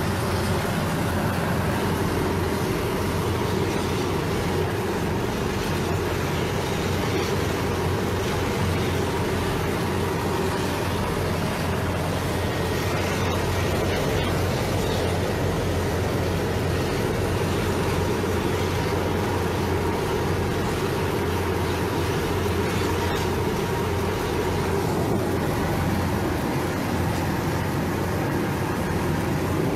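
Steady engine and rotor noise of a helicopter heard from inside its passenger cabin: an even drone with a low hum and a faint steady whine above it.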